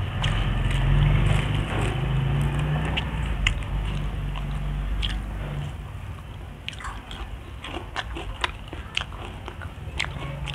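Close-up chewing of fried tilapia and rice, with many short sharp mouth clicks in the second half. A low steady hum runs underneath at first and stops about five and a half seconds in.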